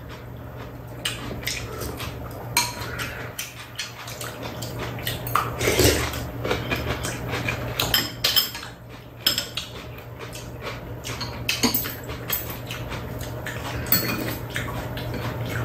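Metal spoons and chopsticks clinking and scraping against bowls and a metal tray during a meal, in many irregular light taps.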